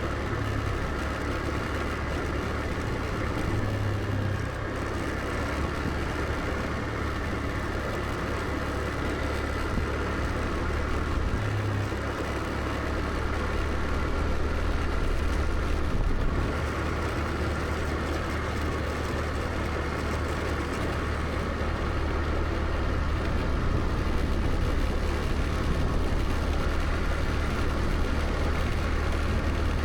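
Scooter engine running steadily on the move, a constant low hum under even road noise.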